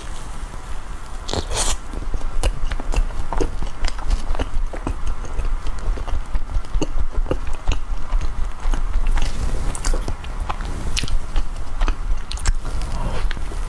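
A person biting into and chewing a soft matcha bread bun with a mochi filling: a steady run of short mouth clicks and smacks.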